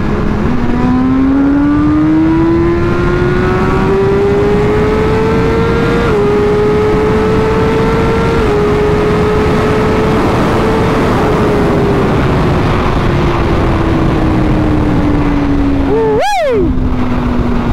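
Inline-four sport bike engine accelerating, its pitch climbing and dipping slightly at two upshifts, then holding and slowly falling as the bike eases off, with a quick sharp rev blip near the end. Heavy wind noise from riding speed runs underneath.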